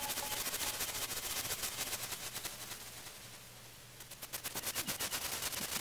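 Glitchy electronic texture from a chopped noise recording played through Ableton's Grain Delay: a dense crackle of rapid clicks over hiss, which thins out about three seconds in and comes back near the end.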